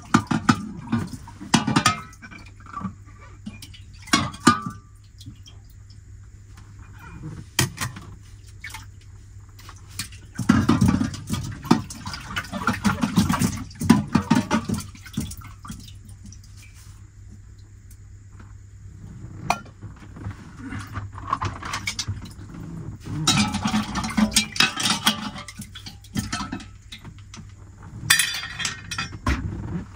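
Metal pots and pans clinking and knocking while water splashes in bursts of a few seconds: cookware being washed at a small sink. A steady low hum runs underneath.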